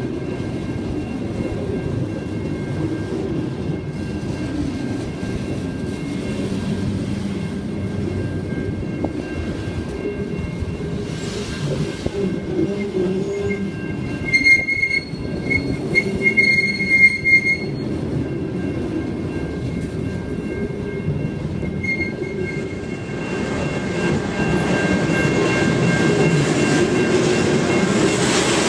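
Loaded grain hopper wagons rolling past with a steady rumble of wheels on rail. About halfway through, wheels squeal for a few seconds in a high whine that breaks up. The rumble then turns louder and closer near the end.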